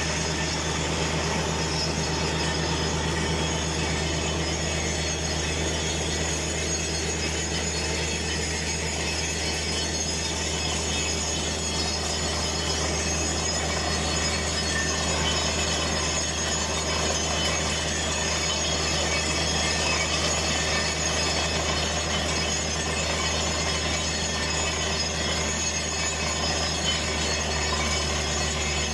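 Truck-mounted borehole drilling rig running steadily with a deep, even hum, while water sprays out around the drill pipe at the wellhead with a constant rushing hiss.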